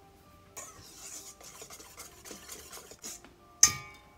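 Dry flour and sugar scraped and rasped in a stainless steel bowl for about three seconds. About three and a half seconds in comes one sharp metallic knock against the bowl, which rings briefly.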